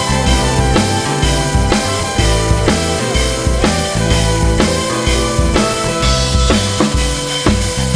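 Background music: a rock track with a steady drum-kit beat and sustained instrument notes.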